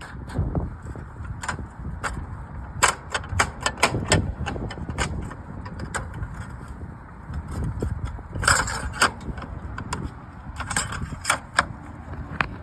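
Irregular sharp clicks and knocks of hand work on slate roofing, over a steady low rumble, with denser runs of clicks about eight and a half seconds in and again near eleven seconds.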